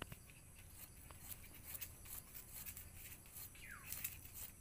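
Faint, irregular clicks of a curved hand-held blade slicing fresh ginger into thin slivers, several cuts a second.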